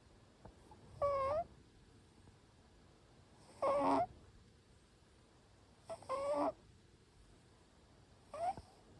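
Short-legged Munchkin cat snoring in its sleep: four short, slightly high-pitched snores, each about half a second, coming about every two and a half seconds.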